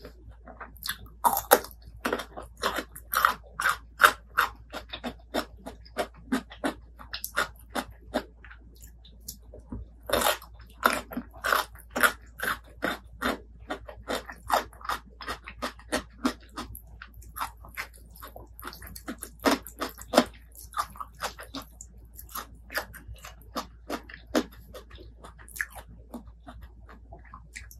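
Close-miked eating sounds: chewing and biting with wet mouth clicks, a steady run of about three chews a second that grows louder for a few seconds at a time, notably about ten seconds in.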